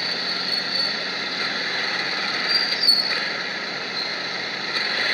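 Steady road noise from a vehicle on the move, mostly an even high hiss. A brief high squeak comes about three seconds in.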